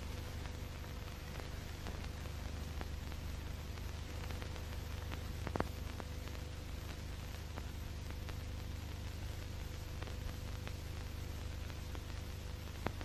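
Steady hiss and low hum of an old 1930s film soundtrack, with a few faint clicks, the loudest about halfway through and another near the end.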